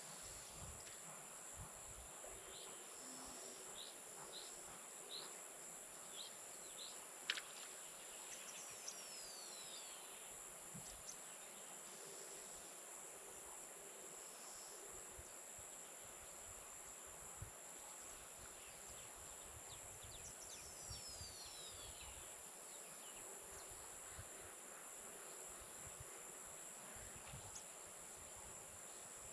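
A steady, high-pitched evening insect chorus of crickets and other insects, with scattered short bird chirps. Two falling whistled bird calls come about a third and two thirds of the way through, and a single sharp tick sounds about seven seconds in.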